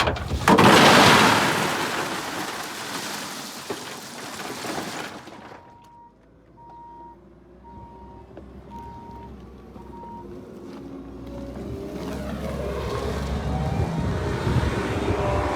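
Crushed stone dumped from a front loader's bucket: a loud rush of pouring gravel that fades out over about five seconds. Then the loader's backup alarm beeps five times, and its engine rises as it pulls away.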